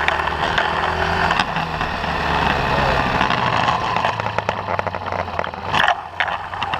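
Small motorcycle engine running steadily at low speed, heard with wind noise on the handlebar-mounted microphone, and a brief louder gust about six seconds in.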